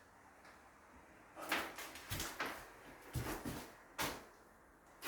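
A few dull knocks and scrapes of objects being handled and set down, spaced roughly a second apart after a quiet first second.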